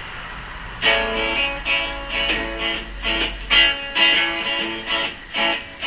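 Guitar strumming a blues intro: a run of chords, roughly two a second, starting about a second in.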